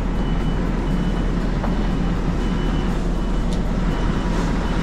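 Scania V8 truck engine running steadily with a low, even rumble.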